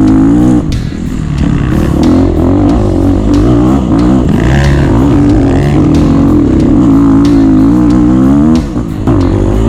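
Off-road dirt bike engine revving up and down under throttle while riding a trail, backing off briefly about a second in and again near the end, with short sharp knocks throughout.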